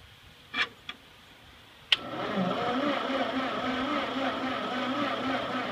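Two light clicks, then a sharp clack about two seconds in as the Ford 8N's starter engages and cranks the engine with a steady whine that wavers in a regular rhythm. The cranking is held back by a weak battery whose voltage drops too much under the starter's load.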